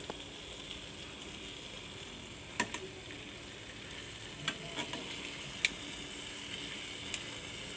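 Marinated chicken legs sizzling steadily in butter in a frying pan. A handful of sharp clicks sound through the middle and later part as metal tongs knock against the pan while turning the pieces.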